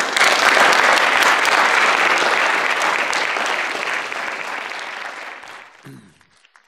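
Audience applauding, loud at first and fading away over the last couple of seconds.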